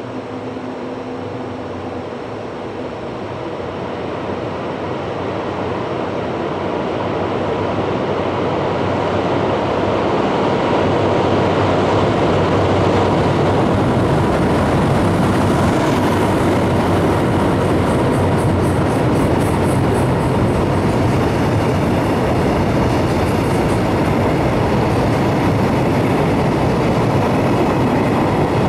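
DF200 diesel-electric freight locomotive approaching with its engine running, growing louder over the first dozen seconds as it nears and passes. The container wagons then roll steadily by on the rails.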